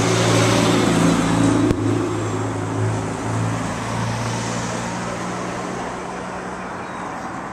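Motor vehicle engine running close by with a steady low hum, loudest at first and fading away over the next few seconds. A single sharp click a little under two seconds in.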